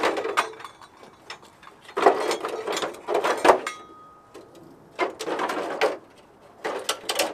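Crumpled plastic front bumper cover being wrenched off a wrecked car's front end by hand: three bursts of scraping, creaking and cracking. The first starts about two seconds in and ends in a sharp crack.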